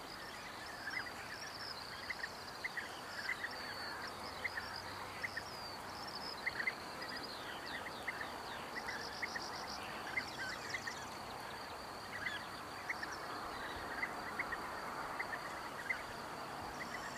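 Outdoor bird ambience: many short bird chirps repeating over a steady hiss, with a continuous thin high tone throughout and a few slurred falling notes around the middle.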